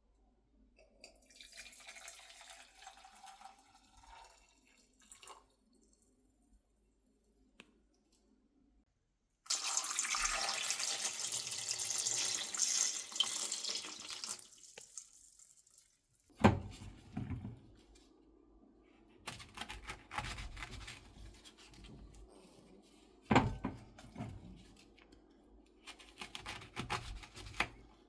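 Water running from a kitchen tap for about five seconds with a steady hiss, after a quieter stretch of liquid sound. Afterwards come a few sharp knocks and clatter of kitchenware being handled.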